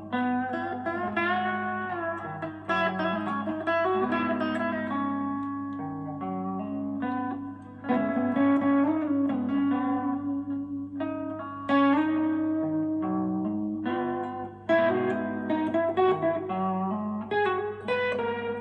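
Goldtop Les Paul electric guitar with Parson Street Golden Age humbucking pickups, played through an amplifier: a run of picked single notes and chords, with loud sharp attacks about 8, 12 and 15 seconds in. A faint steady hum sits underneath.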